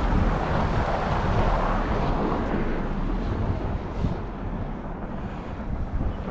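A car driving past on a snowy street, its tyre noise swelling and then fading away over a few seconds, with wind rumbling on the microphone.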